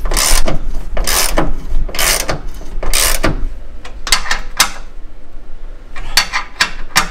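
Ratchet wrench being worked to tighten bolts, clicking in four long strokes about a second apart, then shorter quick clicks near the end as the bolts snug up tight.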